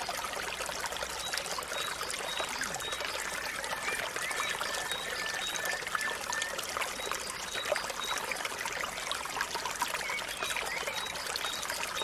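Water pouring and trickling steadily from a bamboo pipe spout. Short high bird chirps repeat over it at an even pace.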